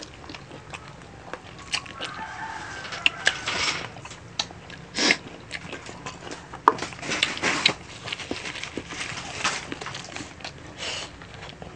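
Close-miked mukbang eating: wet smacking, sucking and sharp clicking bites as adobo chicken feet are chewed and gnawed by hand. A rooster crows faintly in the background about two seconds in.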